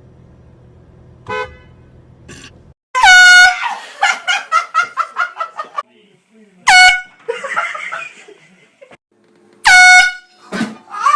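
Three short, loud air-horn blasts about three seconds apart, each a steady blaring tone, with people laughing and yelling between them.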